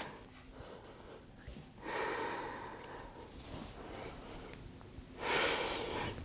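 A woman breathing deeply and audibly in a yoga pose: two long breaths, the second louder, about three seconds apart.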